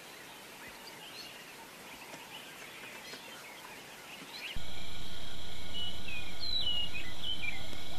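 Outdoor natural ambience with faint bird chirps, which about halfway through jumps abruptly to a louder bed: a steady low rumble, a steady high insect whine and several short falling bird chirps.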